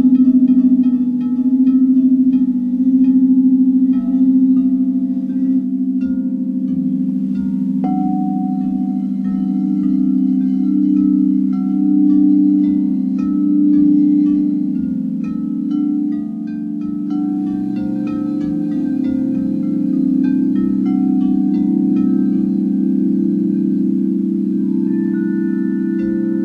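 White frosted quartz crystal singing bowls ringing together in a sustained, deep hum that swells and fades in slow waves. Metal tubular wind chimes sound many short, bright notes over it.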